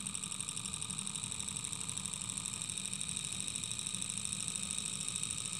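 Small alcohol-fired brass Stirling engine running steadily with a rapid, even mechanical rhythm, now free of the binding that once slowed and stalled it.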